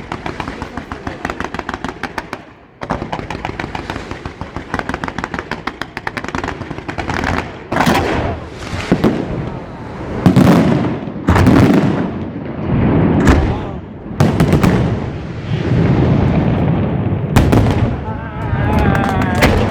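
Fireworks display firing. Quick strings of small cracking reports come first, then from about seven seconds in a series of heavier bursts, each with a long echoing tail.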